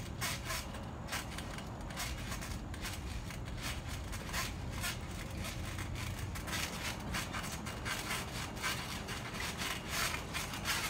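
Trampoline being jumped on by two players: a quick, irregular run of short creaks and rasps from the springs and mat, several a second, over a low steady rumble.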